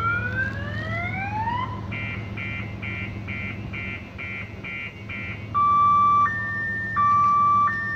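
Car alarm, set off by the train, cycling through its tones: rising whoops, then rapid beeps about twice a second, then from about five and a half seconds in a loud two-tone wail switching between a low and a high pitch.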